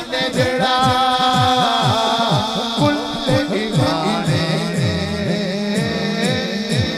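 A man sings a naat through a microphone and loudspeakers, over a quick, steady beat of deep drum hits that drop in pitch.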